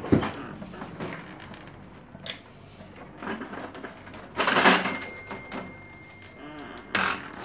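Parts of a Kyocera copier being handled during disassembly: scattered clicks and knocks, with a louder scraping rustle about four and a half seconds in and a shorter one near the end.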